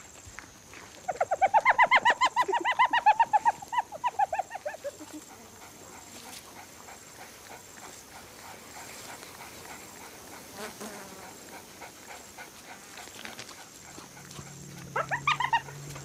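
A wild animal giving a rapid run of high yelping calls, about six a second for some four seconds, tailing off and fading. Fainter calls start again near the end.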